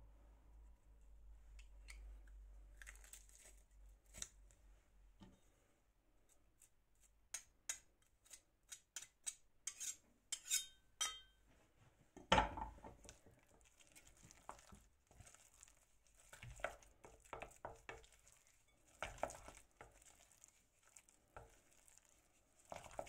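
Quiet kitchen handling sounds: a metal garlic press squeezing garlic and clicking against a glass bowl, with a quick run of sharp clicks partway through and one loud knock a little after the middle. A wooden spoon then stirs mashed avocado in the glass bowl with soft scraping and taps.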